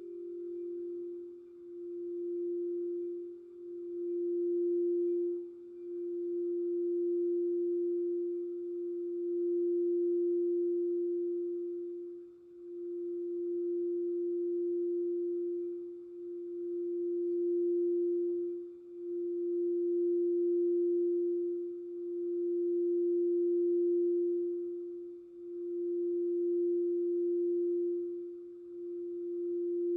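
Crystal singing bowl sounding one pure, steady tone that swells and dips every two to three seconds. A second, slightly higher bowl tone fades out at the start.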